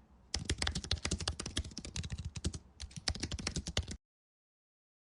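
Computer keyboard typing sound effect: a quick run of key clicks lasting about three and a half seconds, with a brief pause near the end, then silence.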